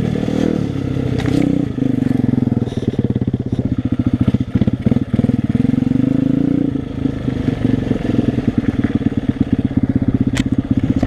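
Small dirt bike engine running while ridden, its revs rising and falling with the throttle, with a fast pulsing exhaust beat. A single sharp click comes near the end.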